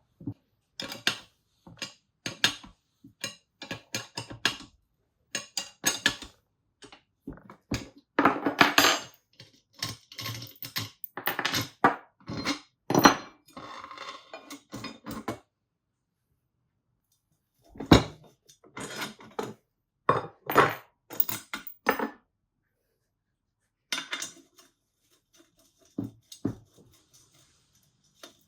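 Irregular metal clinks and clicks from a spanner, nut and socket spacer as a needle roller bearing is drawn into the pivot of an aluminium KTM 250SX swingarm. The clinks stop for about two seconds past the middle, then resume with one sharp clink.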